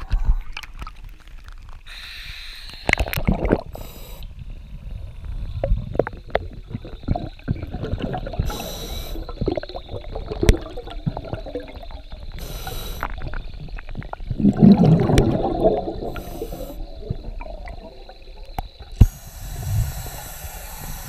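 Scuba divers breathing underwater through their regulators: a rush of exhaled bubbles every few seconds, with scattered clicks and knocks of gear. About two-thirds of the way in, a louder run of bubbles sounds close by, and a sharp knock follows near the end.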